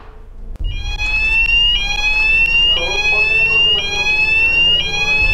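An electronic alarm starts about half a second in. It is a loud tone that rises slowly in pitch over about a second, then drops back and repeats.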